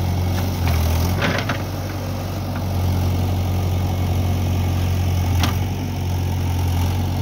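JCB 3DX Eco backhoe loader's diesel engine running steadily under hydraulic work as the backhoe dumps soil and lowers its bucket. The engine note dips briefly just under a second in, and a few short knocks come about a second in and again near the end.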